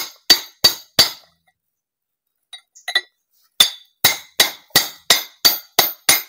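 Hammer striking a steel socket set on a steering rack housing, driving a collar into the rack tube. Sharp metallic clinks, each with a short ring: four quick strikes, a pause with one light tap, then a steady run of strikes about three a second.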